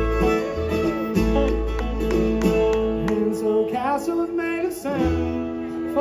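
Live bluegrass band playing an instrumental passage on acoustic guitar, banjo, fiddle and upright bass.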